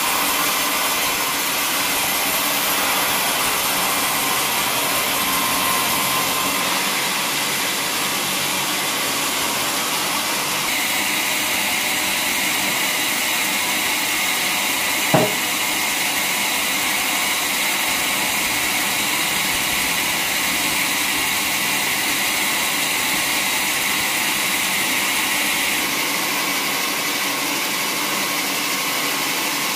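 Band sawmill running and sawing a teak log: a steady, bright mechanical noise from the blade and its drive, changing in tone a couple of times. A single sharp knock about halfway through.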